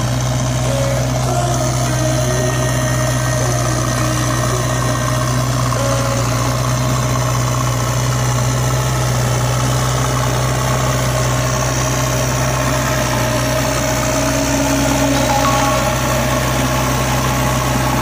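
A steady, low engine-like drone, even in pitch and loudness throughout.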